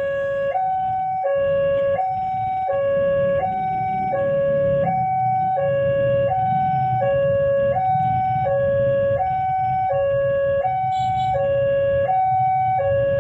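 Railway level-crossing warning alarm sounding a steady two-tone hi-lo signal, switching between a higher and a lower pitch about every two-thirds of a second, warning that a train is approaching. A low rumble runs beneath it from a few seconds in.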